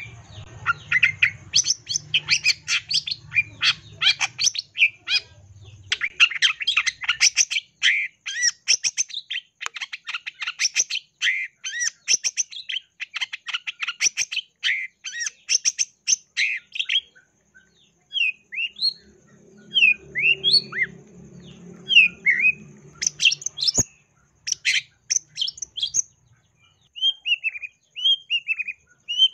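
Long-tailed shrike (cendet) singing: a long, fast run of scratchy chattering notes, full of phrases mimicked from other birds. After a short break past the middle come separate slurred whistled chirps, then another quick chattering run and some falling notes.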